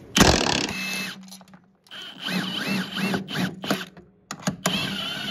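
Cordless impact wrench with a 16 mm socket breaking loose a snowmobile's rear suspension mounting bolt: a loud burst of impacting, then the motor spinning the bolt out in uneven spurts of rising and falling whine, and another short burst near the end.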